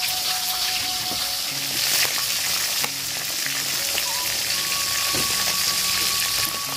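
Small whole fish frying in hot oil in a wok: a steady, dense sizzle with a few sharp pops.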